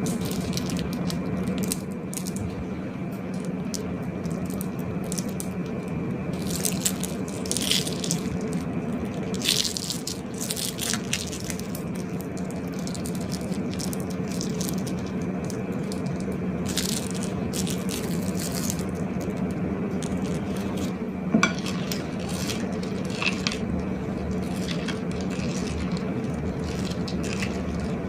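Slime being squeezed and worked by hand, with sticky squishes and scattered crackly clicks and pops over a steady low hum. A few louder snaps stand out in the first half and one about three-quarters of the way through.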